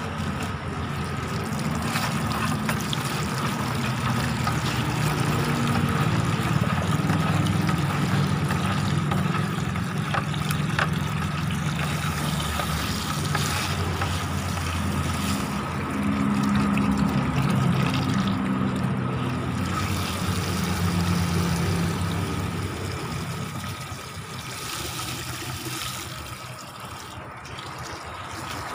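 Water from a garden hose running and splashing into a plastic bucket as it fills, while a hand stirs NPK and humic-acid fertilizer into the water. A steady low rumble and a faint steady high tone run underneath, and the sound gets quieter near the end.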